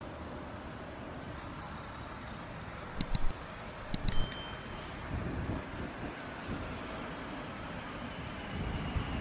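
Steady roar of a Boeing 747's jet engines as it comes in on short final, with low rumble building toward the end. About three seconds in, two quick clicks sound, and a second later a click and a bright bell chime from a subscribe-button sound effect.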